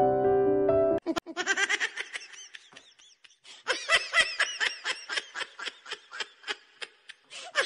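Piano music stops abruptly about a second in, followed by high-pitched giggling laughter: rapid short 'ha' pulses, several a second, in two runs with a brief pause between.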